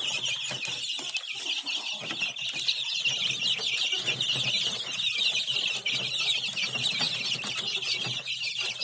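A brood of young chicks peeping without pause, a dense high-pitched chorus from many birds feeding together, with scattered faint ticks.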